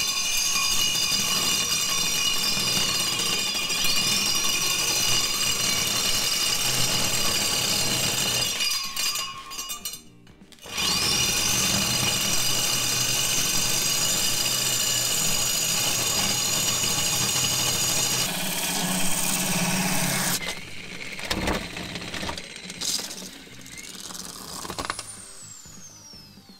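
Electric core drill with a 65 mm core bit cutting into a wall, started without a pilot drill: a steady motor whine that sags in pitch as the bit bites. It stops about 9 seconds in, starts again a second later and runs to about 20 seconds in. Near the end the motor winds down with a falling whine.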